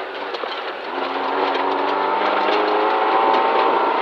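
Rally car engine heard from inside the cabin over road noise, easing briefly and then pulling up steadily through the revs as the car accelerates along the gravel stage.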